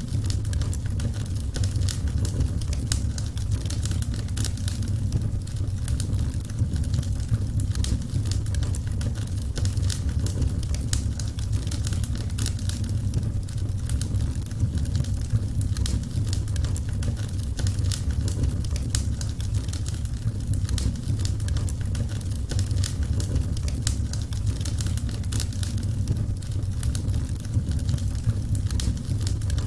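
Wood fire crackling: frequent sharp snaps and pops over a steady low rumble of burning.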